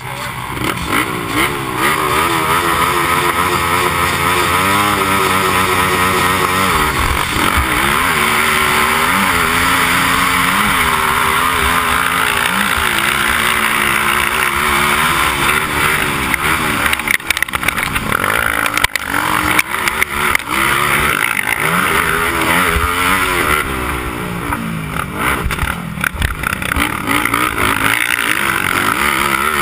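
Honda TRX300EX quad's single-cylinder four-stroke engine revving hard from the starting gate and racing, its pitch repeatedly rising and falling with throttle and gear changes, with other race quads' engines around it. Heavy wind noise on the helmet-mounted microphone, and a few sharp knocks from bumps about two-thirds of the way in.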